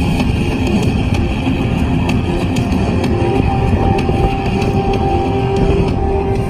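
Loud music with drums and a heavy low end. A held note comes in about three seconds in.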